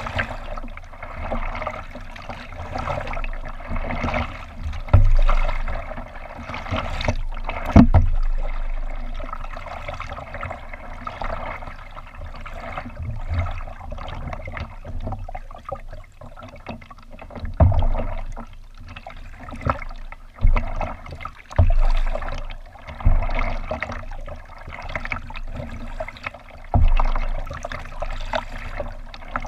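Water lapping and gurgling against a kayak's hull, with irregular low slaps of small waves striking the bow.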